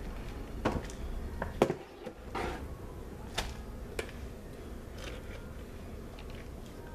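Scattered light knocks and scrapes, the loudest about one and a half seconds in, as thick soap batter is scooped with a plastic cup and pushed out into a lined wooden loaf mold.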